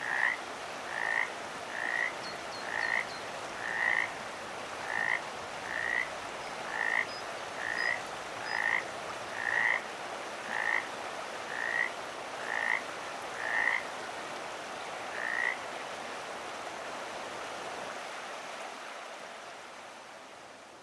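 A frog croaking, short calls repeated about once a second over a steady background hiss. The croaks stop about three-quarters of the way through, and the hiss fades away near the end.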